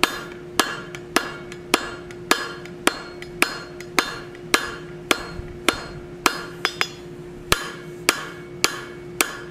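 Hand hammer striking hot mild steel flat stock on an anvil, an even rhythm of a little under two blows a second, each with a short metallic ring, as the bar is forged and drawn out.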